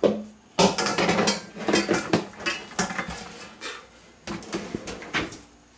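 Bowls and a metal colander knocking and clattering together in a kitchen drawer as a bowl is rummaged out, a quick irregular run of clanks for about five seconds.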